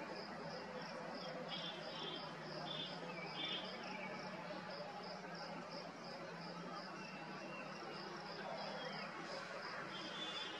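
A cricket chirping in a steady, even rhythm of about three high chirps a second, over a constant hiss of night ambience. A few short, lower trills from another insect or bird come in about two seconds in and again near the end.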